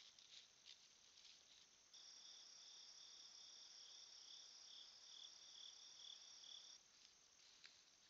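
An insect, cricket-like, trilling high and steady for about five seconds, starting about two seconds in. Faint scattered ticks and rustles are heard around it.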